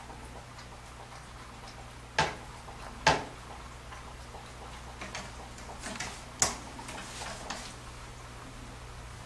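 Irregular sharp knocks and clicks from cats moving about a wooden cat tree with sisal-wrapped posts. Two loud knocks come about two and three seconds in, another loud one a little past six seconds, and lighter clicks fall between them, over a steady low hum.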